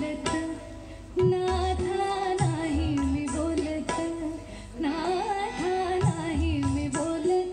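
A live Marathi song: a woman sings an ornamented melody, accompanied by tabla, harmonium and flute. The music dips briefly near the start and comes back in about a second in.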